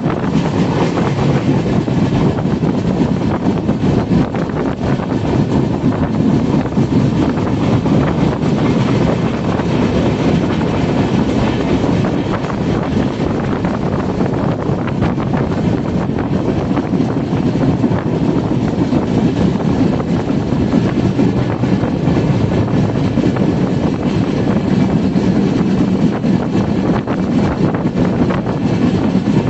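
A train running along the track, a steady rumble heard from on board, with wind buffeting the microphone.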